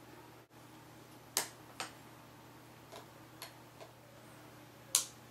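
About six sharp clicks and taps from a small screwdriver and the metal parts of a MacBook's battery bay being handled during a RAM upgrade. The loudest clicks come about a second and a half in and near the end.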